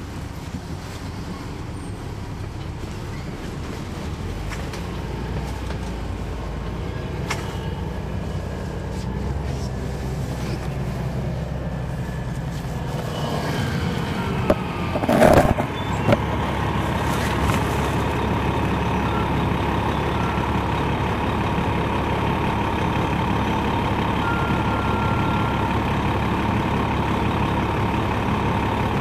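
A 2001 MCI D4000 coach's Detroit Diesel Series 60 engine idling at a stop, its drone growing slowly louder. About halfway through there is a brief loud burst, after which the idle carries on steady.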